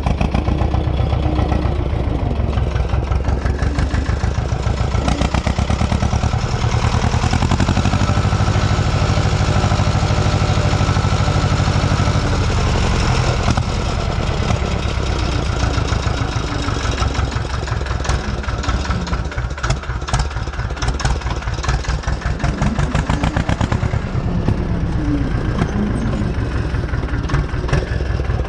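Ursus C-330M tractor's two-cylinder diesel engine running steadily under load while pulling a plough, with its firing pulses close and clear and the engine note shifting slightly a few times.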